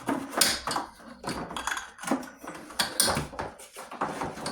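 Irregular clicks, knocks and rustling of handling a film projector's power cord as it is pulled out of the projector case.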